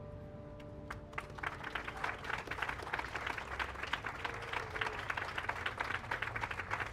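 The last notes of a grand piano fade out, and about a second in a crowd of onlookers starts applauding.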